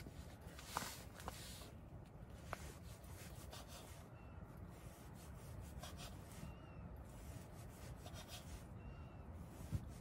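A knife slicing sausage on a wooden cutting board: faint scraping with a few light taps of the blade on the board, the last one near the end the loudest, over a steady low rumble.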